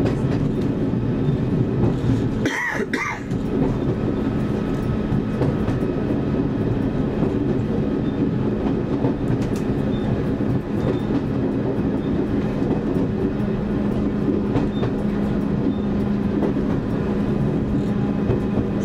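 Class 101 diesel multiple unit running along the line, heard from inside the driving cab: the underfloor diesel engines give a steady drone, with light clicks from the wheels over the rail joints.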